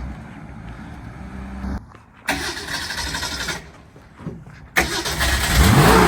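1965 Mustang's engine running during a test drive, in choppy stretches that start and stop abruptly, then a loud rush from about five seconds in as the engine revs up and back down under hard acceleration.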